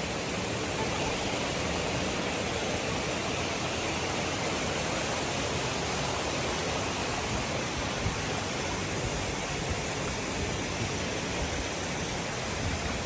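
Steady rushing hiss of falling and flowing water from a waterfall and its rocky stream.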